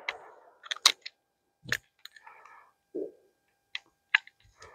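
A handful of separate sharp clicks and clacks from a Serbu Super Shorty 12-gauge pump shotgun being worked by hand to clear a jam, a 1¾-inch Aguila short shell that failed to feed.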